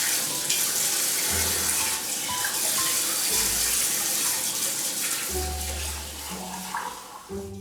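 Water running hard from a kitchen tap into a sink, as when washing dishes; the flow starts abruptly and tails off near the end.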